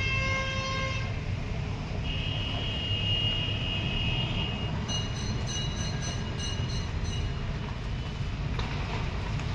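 A steady low rumble with several horn-like tones over it: a short toot in the first second, then a high steady tone for about two and a half seconds, and more high tones a little later.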